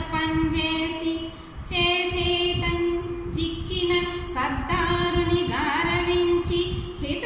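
A woman singing a Telugu verse unaccompanied, holding long steady notes, with a short break for breath about a second and a half in.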